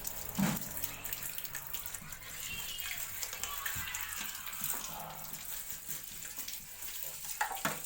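Tap water running while a washing machine lint filter is scrubbed under it with a toothbrush, a steady splashing rush with scratchy brushing.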